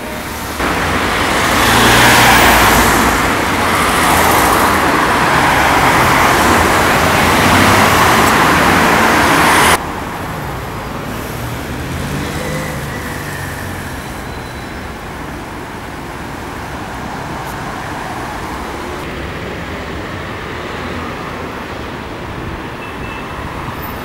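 Road traffic noise: a loud, steady rush that cuts off abruptly about ten seconds in, then quieter, steady traffic with a low engine hum.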